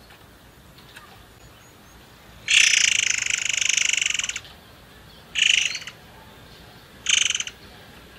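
Caged murai air singing: a long rapid trilled phrase lasting about two seconds starts a few seconds in, followed by two short calls.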